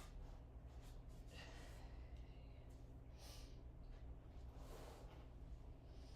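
Near silence: a steady low hum with three faint, soft noises spread through it.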